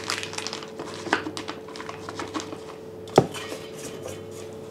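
Kitchen utensil work: a spatula pressing stiff meringue into a plastic piping bag, with small crinkling and scraping sounds, then one sharp metallic clank about three seconds in as the stainless steel mixing bowl is handled. A faint steady hum runs underneath.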